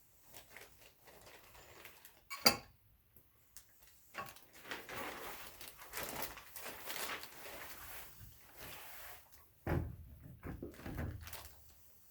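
Wagon parts being handled while a wheel is fitted: irregular clatter and rustling, a sharp click about two and a half seconds in, and a heavier thump about ten seconds in.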